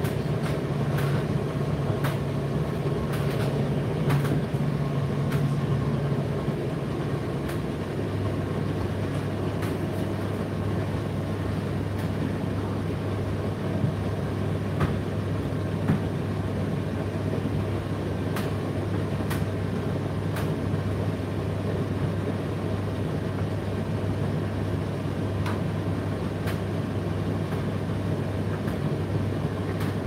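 Indesit IDC8T3 8 kg condenser tumble dryer running mid-cycle, a steady hum of drum and fan. The hum's low tone drops in pitch about eight seconds in, and there are scattered light clicks throughout.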